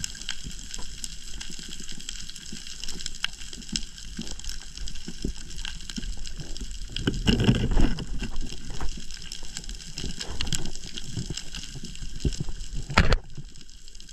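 Underwater reef sound picked up by a diver's submerged camera: a constant crackle of small clicks over a low rumble of moving water. A louder rush of water comes about seven seconds in, and a single sharp click about a second before the end.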